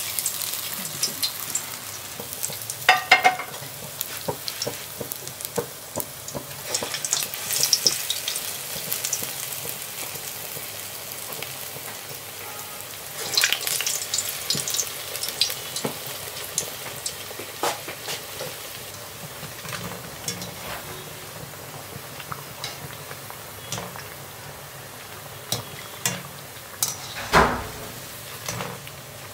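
Medu vadas (urad dal fritters) deep-frying in hot oil in a kadai: a steady sizzle with constant crackling. A few louder knocks and scrapes of a wire skimmer against the pan cut in, the loudest near the end as the golden vadas are lifted.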